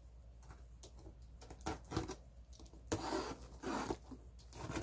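A small sharp cutter blade slitting and scraping the packing tape along a cardboard box seam, in short scratchy strokes with a few light clicks. The longest stroke comes about three seconds in.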